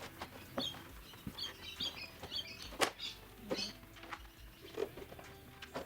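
Scattered sharp clicks and knocks of hand tools prying at a stuck car rear wing, the loudest about three seconds in. Birds chirp in the background.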